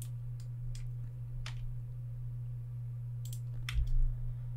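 Computer mouse clicks, a handful of light separate clicks with a small cluster near the end, over a steady low electrical hum.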